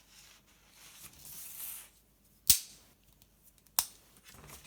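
Victorinox Swiss Army knife blades snapping shut or open against their backsprings: two sharp clicks about a second and a quarter apart, the first the louder, after a little soft handling rustle.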